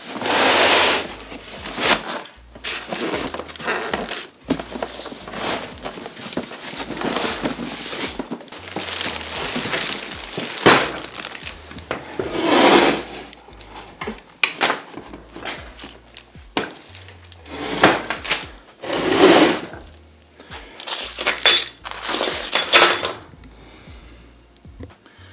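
Cardboard box and packing material being handled and pulled apart as a belt grinder's electric motor is unpacked: repeated rustling and scraping swells with knocks and clunks. Quiet background music runs underneath.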